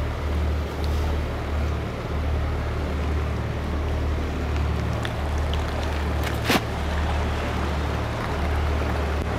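Boat engine running steadily with a low hum, under a haze of water and wind noise. A single sharp knock about six and a half seconds in.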